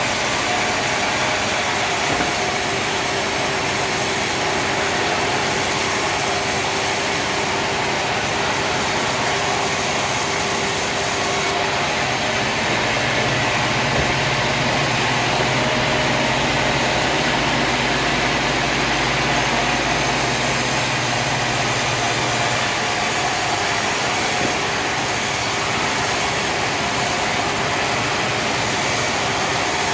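Sawmill machinery running steadily, a dense mix of engine noise and saw noise, with a deeper low hum joining for several seconds in the middle.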